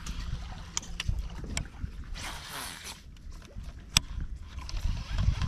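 Wind rumbling on the microphone, with a few sharp clicks and knocks from a baitcasting reel and tackle being handled. The loudest click comes about four seconds in, and there is a short hiss about two seconds in.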